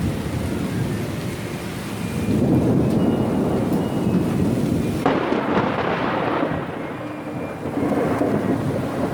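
Thunderstorm: rolling thunder rumbling over steady heavy rain, the rumble swelling about two seconds in.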